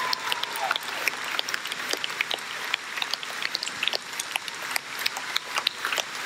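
Large audience applauding, a dense steady patter of clapping. A short tone slides downward and fades out in the first second.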